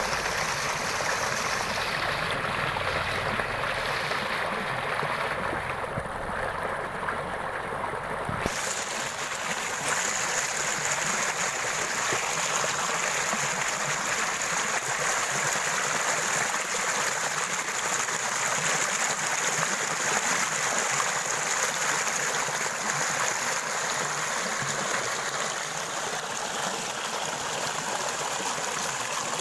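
Water flowing steadily, a continuous rushing and gurgling like a stream. A low rumble underneath stops suddenly about eight seconds in.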